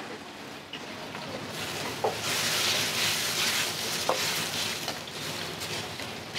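Food frying in hot oil: a sizzle that surges loudly about two seconds in and keeps hissing. Two short metallic clinks come at about 2 and 4 seconds.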